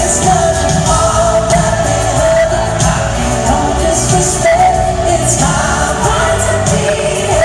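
Live pop concert: a singer holding a sung melody over loud amplified band music with drums and cymbals.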